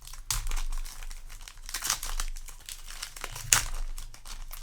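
Foil wrapper of a Yu-Gi-Oh! booster pack crinkling and tearing as the pack is opened by hand, in several bursts, the sharpest about three and a half seconds in.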